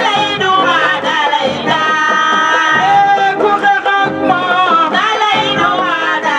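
Music with a voice singing, long held notes alternating with sliding melodic runs.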